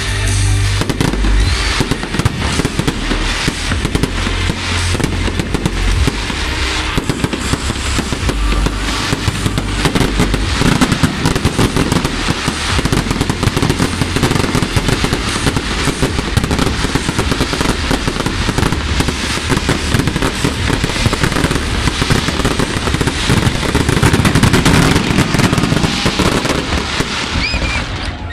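Fireworks display: a dense, continuous volley of bangs and crackling from bursting aerial shells and crackle stars, with no let-up.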